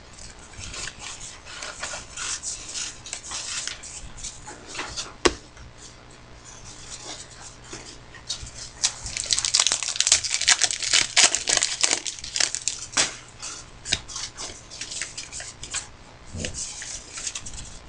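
Trading-card packs and cards being handled: wrappers crinkling and cards rustling and flicking in irregular flurries, busiest around the middle.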